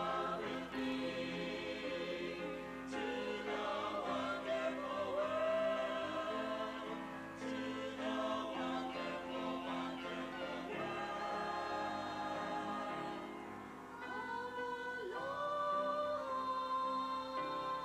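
A choir singing a song in harmony, several voice parts together with long held notes.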